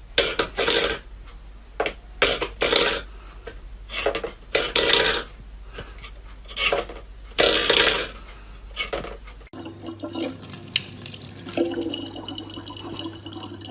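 Water splashing in irregular bursts, then, after a cut, a tap running steadily into a sink with a low hum underneath.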